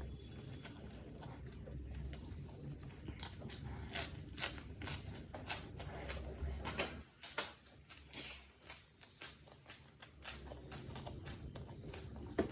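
Close-miked chewing of a mouthful of chicken biryani, with a quick run of crisp crunching clicks from about three seconds in.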